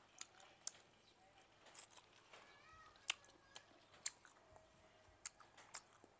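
Close-miked eating sounds from chewing grilled frog: sharp, wet mouth clicks and smacks every half second or so, the loudest about three seconds in, with a couple of faint, short pitched sounds in the middle.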